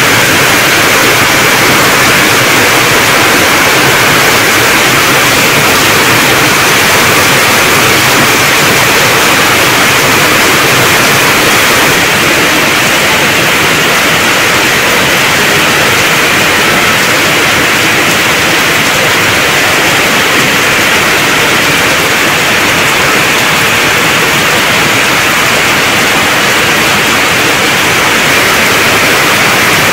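Heavy monsoon downpour falling on corrugated tin roofs and wet ground: a loud, steady hiss of rain, a shade quieter after about twelve seconds.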